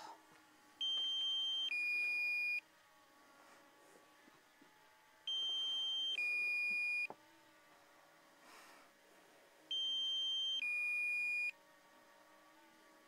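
Electronic two-tone warning beep from the DJI Mini 2 drone's controller: a higher tone then a lower one, each just under a second long. It repeats three times, about every four and a half seconds.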